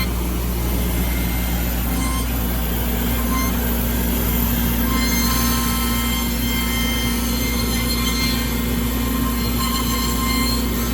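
Onefinity CNC machine running an engraving job: a steady mechanical whine and hum, with high tones that come and go as the machine moves and a lower tone joining about two seconds in.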